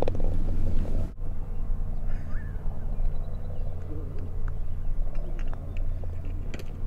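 A putter strikes a golf ball once, a short sharp click near the end, over a steady low outdoor rumble and faint bird chirps.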